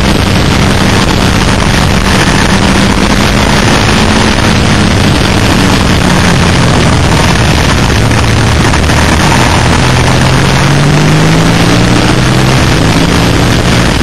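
Suzuki SV650 V-twin engine running at speed on a race track, heard through heavy wind rush on an onboard camera microphone. The engine note climbs from about ten seconds in as the bike accelerates.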